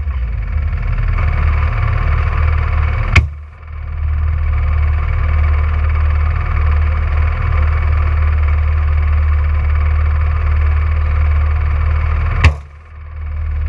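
Rally car engine running under load as a steady low drone, with two sharp bangs, one about three seconds in and one near the end, each followed by a brief dip in the engine sound.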